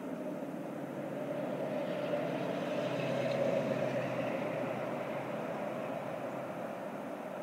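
Distant engine noise of a passing vehicle, swelling to a peak about three and a half seconds in and then fading.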